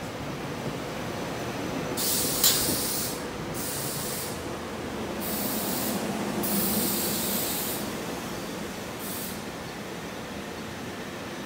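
SEPTA stainless-steel electric commuter cars rolling past with a steady running noise of wheels on rail, broken by several short bursts of hissing and one sharp click about two and a half seconds in.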